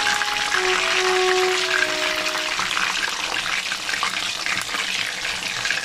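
Batter-coated fish fillets deep-frying in hot oil in a wok: a steady, crackling sizzle.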